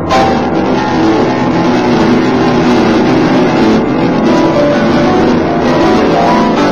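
Instrumental music: a dense passage of held, layered chords that begins with a sharp attack.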